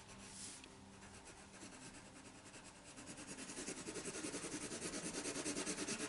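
Colored pencil scratching across paper in quick back-and-forth coloring strokes, about six a second. The strokes grow louder from about three seconds in.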